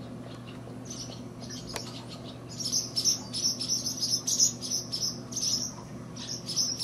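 Small birds chirping in quick runs of short, high-pitched chirps, sparse at first and thick from about two and a half seconds in, over a steady low hum.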